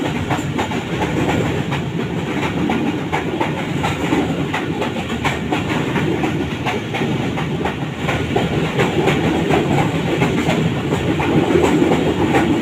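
Passenger train running at speed, heard from on board: a steady rumble with the wheels clicking and clacking over the rails.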